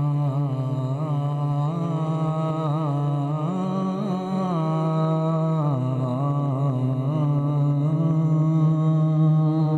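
A man singing a rubai (devotional quatrain) unaccompanied into a microphone, in long drawn-out notes with quick wavering ornaments.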